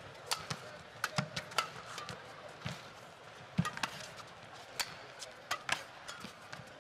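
Badminton rally: sharp, irregular cracks of rackets striking the shuttlecock back and forth, mixed with the players' footfalls on the court.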